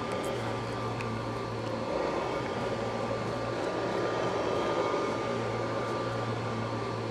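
Steady low hum and hiss with a faint high held tone, like background ambience or a low drone.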